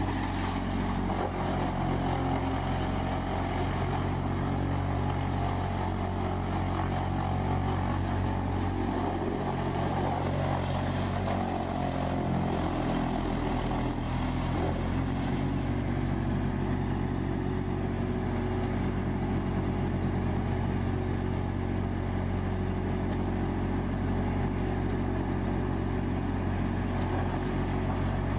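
Large whole-tree chipper's diesel engine running steadily under load as tree trunks are fed in, a constant engine drone with a rougher chipping noise over it.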